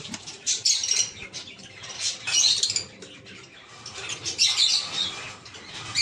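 Small parrots chirping and calling in short high bursts, three clusters of calls.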